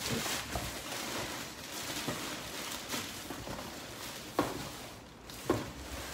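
Crumpled packing wrap rustling and crinkling as hands dig through a cardboard shipping box, with two sharp knocks a little past halfway.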